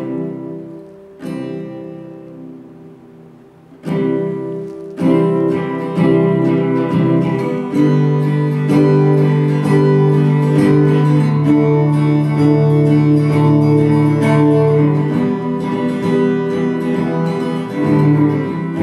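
Acoustic-electric guitar strummed and amplified through a Transformer 12 portable speaker via a mixer: a few single chords left to ring over the first four seconds or so, then steady strumming.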